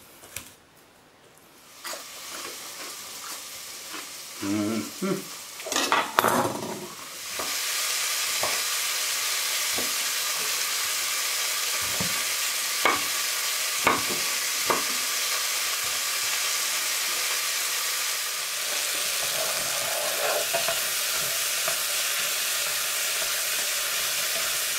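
Chopped vegetables frying in oil in a stainless steel saucepan. After some quieter clattering, a steady, loud sizzle sets in about seven seconds in and holds, broken by a few sharp knocks midway.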